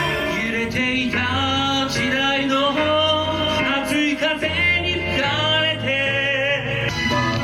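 Music: a song with a sung voice, its pitch wavering and gliding, over an instrumental backing with a steady bass.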